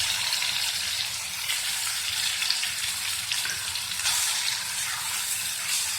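Wet ground masala paste (onion, tomato, coconut, sesame and poppy seed) frying in hot oil in a kadhai: a steady sizzle as it is stirred and fried.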